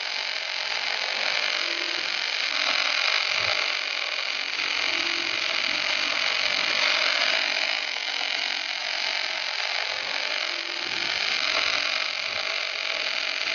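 Electric welding arc of an automatic welding carriage laying a corner weld along a steel seam: a steady hiss with no breaks.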